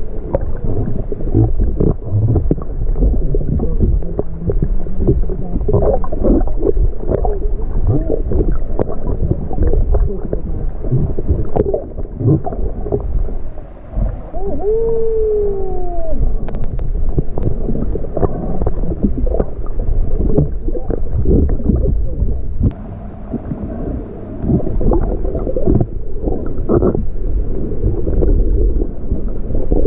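Underwater sound picked up by a camera held below the surface: muffled water movement with a dense crackle of small knocks and bubbles. About halfway through, a short tone rises and then falls.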